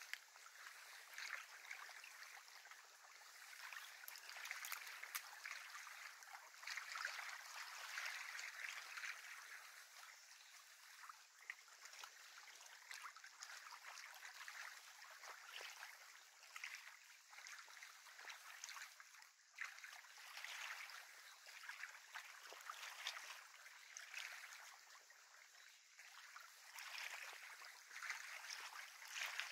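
Small waves lapping at a lake shore: a faint, irregular wash of water that swells and fades, with a few soft clicks.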